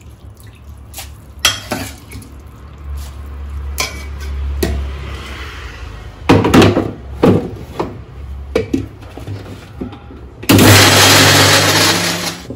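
A spoon clinks and scrapes against a steel mixer-grinder jar, followed by a few loud knocks as the jar is set onto its base. Near the end the mixer grinder runs loudly for about two seconds, grinding soaked rice and ash gourd into dosa batter.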